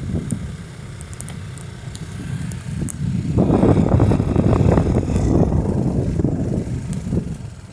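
Dual-sport motorcycle running as it rides along a dirt road, with wind rumbling on the microphone. The sound grows louder about three seconds in and eases off again near the end.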